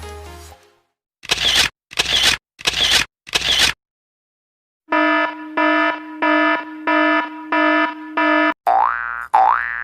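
A string of stock sound effects: four short hissy bursts, then an electronic alert beeping about two times a second, eight beeps in all. Near the end, cartoon boings with rising pitch begin, repeating.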